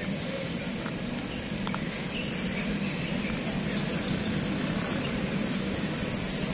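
Steady low hum of street traffic, with a few faint clicks of a cat crunching dry kibble about a couple of seconds in.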